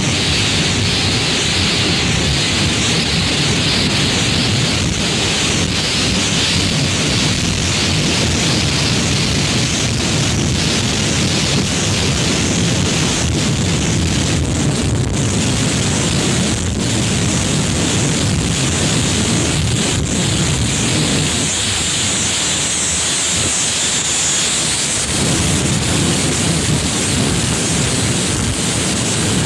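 Loud, steady wash of noise with no clear pitch, its low end thinning for a few seconds about three-quarters of the way through.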